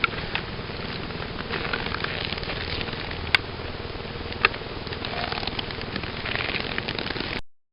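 Steady rain-like patter with a few sharp ticks scattered through it, cutting off abruptly near the end.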